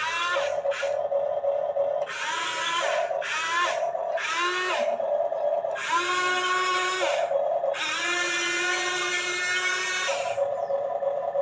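Electric motors of a Huina 1550 RC excavator whining in seven short runs as the boom, arm and bucket move, each run rising in pitch as it starts; the last two runs are the longest, about a second and about two seconds.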